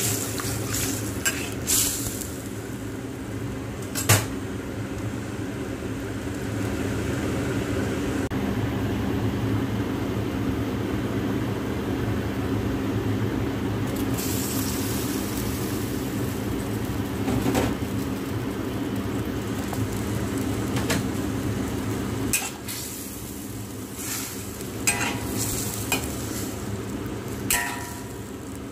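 Sauce sizzling and bubbling in a wok while a spatula stirs strips of red bell pepper, with scattered clinks and scrapes of the spatula against the wok over a steady low hum. About halfway through, fried chicken fillet pieces are tipped in from a bowl and stirred into the sauce.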